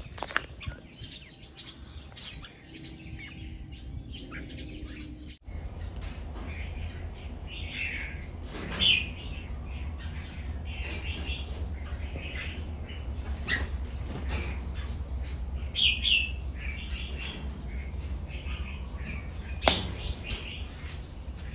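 Red-whiskered bulbuls giving short, scattered chirping calls, loudest about nine and sixteen seconds in, over a steady low hum.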